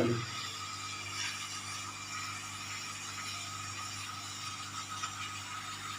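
Hot air gun blowing steadily over a freshly washed laptop motherboard to dry it, a constant hiss with faint steady tones.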